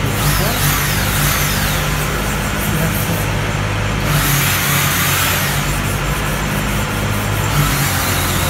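Handheld electric drill running steadily, turning a tool down inside a cylinder bore of a Ghazi 480 tractor engine block, with a rasping scrape of metal that swells and eases.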